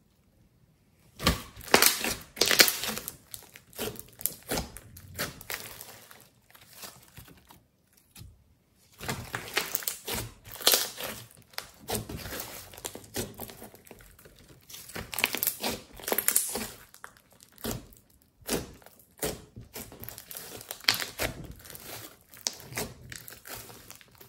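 Glossy slime mixed with clay being stretched, folded and pressed by hand: sticky crackles and clicks in uneven bursts, with brief pauses.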